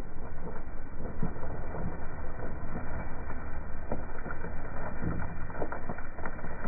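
Case backhoe's diesel engine running steadily, with dirt and stones spilling from its bucket onto a pile in short crackles.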